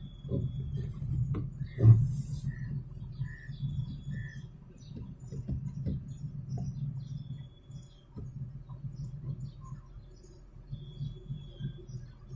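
Videocon Digi Marine washing machine running with a low hum and irregular clicking and knocking, the noise fault that the owner traced to the gearbox. There is one loud knock about two seconds in, followed by three short beeps.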